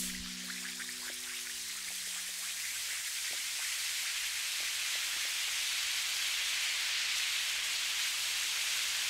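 Steady rushing hiss, mostly high-pitched and slowly growing louder, with a few faint ticks early on. The last held notes of a music track die away in the first two seconds.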